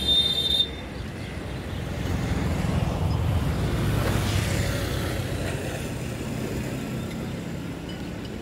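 A brief shrill high-pitched toot right at the start, then the low rumble of electric locomotives running on the tracks, swelling a few seconds in and easing off, with wind on the microphone.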